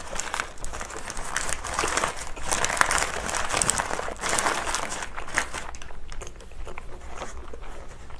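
Paper burger wrapper crinkling and rustling as it is handled, close to the microphone, busiest around the middle, with the chewing of a burger.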